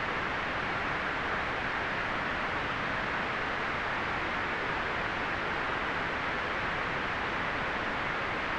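Steady white noise: a constant, even hiss that never changes, fullest in the middle range and muted in the highest treble.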